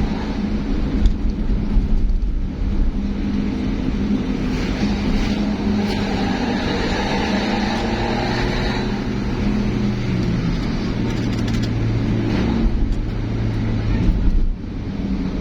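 Road vehicle engine running steadily over tyre and road noise, with a deeper hum joining partway through.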